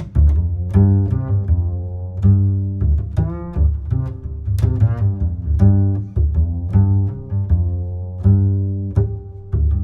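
Instrumental background music: a run of plucked notes, a few each second, over a deep bass line.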